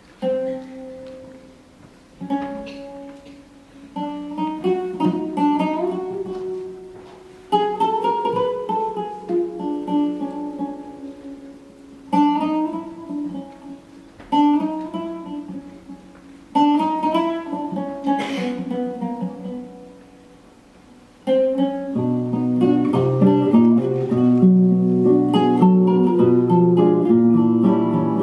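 Classical guitar and oud played as a duo. The piece opens with separate plucked phrases that ring and die away, then about three-quarters of the way through the playing becomes continuous and fuller, with low bass notes underneath.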